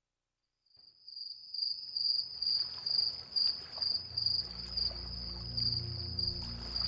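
Crickets chirping in an even, pulsing rhythm of about two chirps a second, fading in after a moment of silence. A low music drone comes in about four seconds in.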